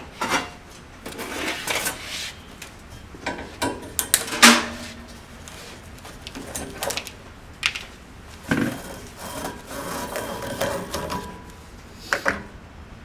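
Hands and tools working on the metal tubing of an RV absorption refrigerator's cooling unit: scraping and rubbing as a wire tie is cut and a rubber drip hose is pulled free, with scattered clicks and knocks and one sharp clank about four and a half seconds in.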